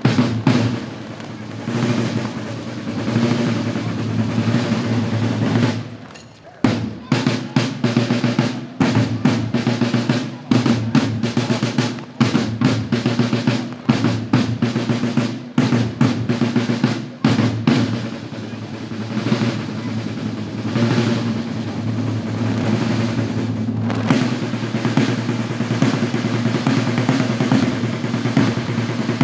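Snare drums of a marching drum corps playing rolls and a fast marching rhythm, with bass drum beats. The drumming breaks off briefly about six seconds in, then resumes.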